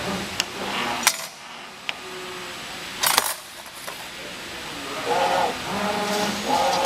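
CNC 2D bending machine at work: a few sharp metallic clicks and clinks, the loudest a short cluster about three seconds in.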